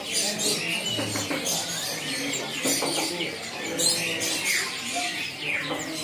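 Many caged small songbirds chirping and calling at once, short overlapping chirps scattered throughout.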